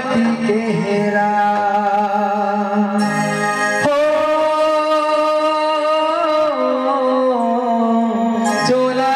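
Chhattisgarhi devotional bhajan: a man singing through a microphone over electronic keyboard accompaniment, with a long held, wavering note about halfway through.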